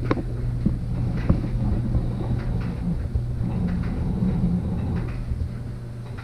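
Scattered knocks, clicks and scrapes of hands working a plastic wheel-well liner panel loose and shifting a camera on the floor, over a steady low hum.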